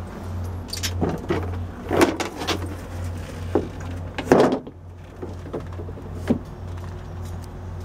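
A steady low hum with a series of irregular knocks and thumps from footsteps and handling on a boat's deck. The loudest knock comes a little past the middle.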